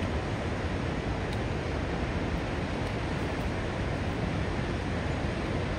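Whitewater mountain river cascading over boulders: a steady, even rush of water.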